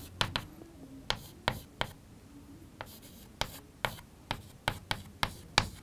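Chalk on a blackboard as an equation is written out: a string of irregular sharp taps and short scratchy strokes.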